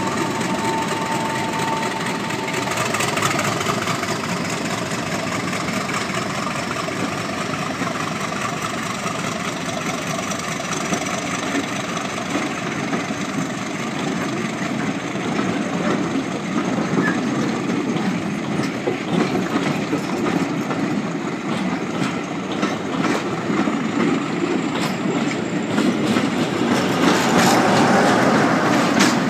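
A diesel-hauled passenger train pulling away past the listener. At the start the English Electric Class 50 locomotive's V16 engine is working as it goes by, and its note then fades. The coaches roll past, their wheels clicking over the rail joints in the second half. Near the end a second diesel locomotive at the rear of the train passes close by and the sound swells.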